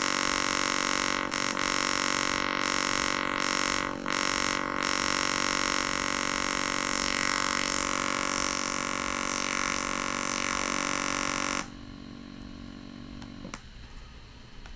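A browser synthesizer's sawtooth oscillator plays a steady buzzy tone at one pitch through a Web Audio biquad filter, and its tone colour shifts as the shelf filter and cutoff frequency are changed. About twelve seconds in, it suddenly becomes much quieter and dull as a lowpass filter with its cutoff at the bottom of the range takes away the upper harmonics.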